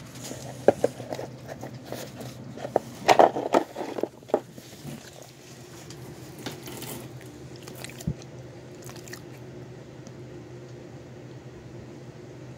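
A dog crunching and chewing bone nubs: a run of sharp crunches over the first four seconds or so, densest around three seconds in. After that only a steady low hum remains.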